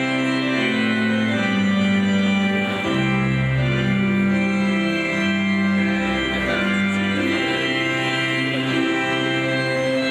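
Organ playing slow, sustained chords that change roughly every second.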